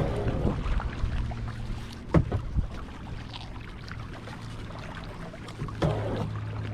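Kayak paddle strokes: the blade dips into the lake and splashes three times, a couple of seconds or more apart, with soft water sounds between.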